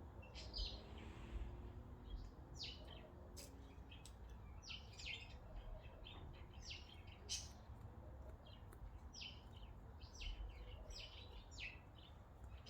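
Small birds chirping faintly: many short, scattered chirps over a low, steady background rumble.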